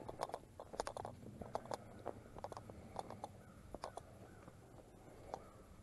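Footsteps on a dirt trail covered in dry fallen leaves, with faint, uneven crunching and crackling several times a second.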